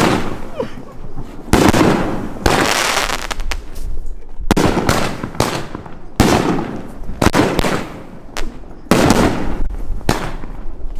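Aerial fireworks from a multi-shot consumer cake firing shot after shot, about one sharp report a second, each trailing off in a hiss.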